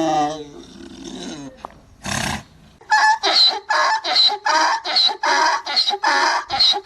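Donkey braying: a falling call at the start, a short rasping breath about two seconds in, then a fast run of hee-haw pulses, about three a second, from about three seconds on.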